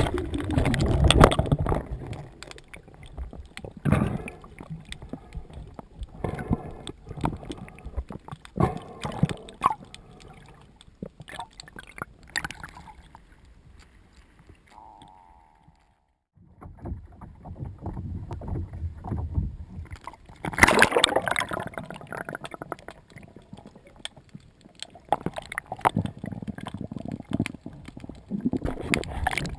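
Water splashing, sloshing and gurgling around a camera that moves between underwater and the surface, with irregular knocks and a short near-silent spell about halfway. The loudest splash comes about two thirds of the way in.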